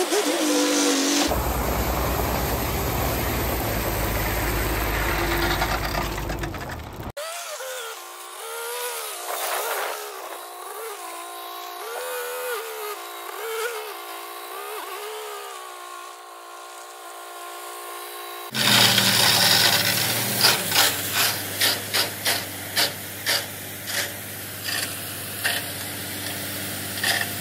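Diesel dump truck engine running as the truck manoeuvres and then dumps its load of gravel, in several clips that change abruptly about 1, 7 and 18 seconds in. The last part carries a run of sharp clacks, about two a second.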